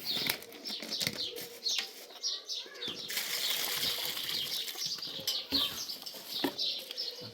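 Birds chirping in quick, short, high notes, with a rush of wing flapping about three seconds in.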